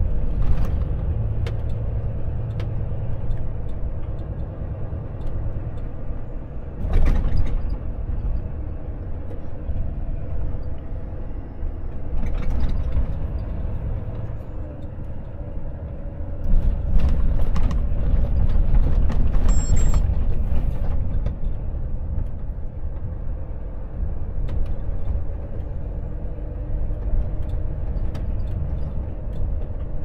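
Volvo FH truck's engine running under a steady low rumble, heard from the cab, with short hissing bursts about 7 and 12 seconds in and a louder, busier stretch around 17 to 20 seconds.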